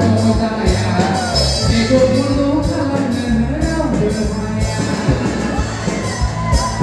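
Male voice singing a Bodo-language song into a microphone over an amplified backing track with a steady beat and heavy bass.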